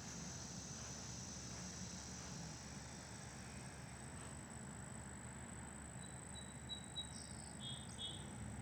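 Faint outdoor ambience: a steady high-pitched insect drone, with a few short bird chirps about six to eight seconds in.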